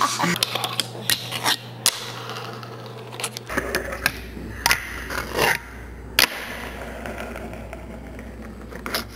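Fingerboard tricks: sharp clacks of the small board's tail popping and landing, several spread through, with short bits of wheels rolling and scraping on the surface in between.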